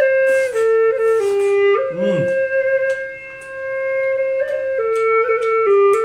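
Background music: a flute-like melody of long held notes moving in steps, with a few faint ticks.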